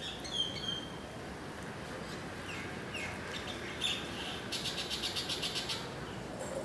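Birds chirping: short high chirps and quick falling calls, with a rapid chattering run of about a dozen notes about halfway through, over a steady background hiss.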